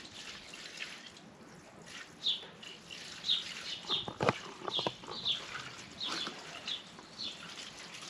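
Water trickling and splashing as it is poured slowly out of a plastic bucket onto pavement, with a bird chirping over and over in the background.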